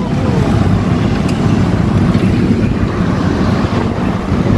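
Steady road traffic noise: motor vehicles running on a busy city road, with a dense low rumble throughout.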